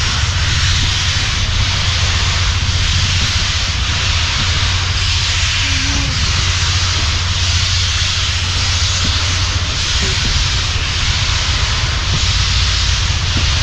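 Steady running noise of a moving train: a deep, even rumble under a broad hiss, with no let-up.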